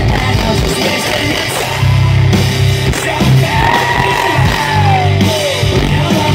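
Live hard-rock band playing loudly through a PA: distorted electric guitar, electric bass and drums. A long held note bends downward about three to five seconds in.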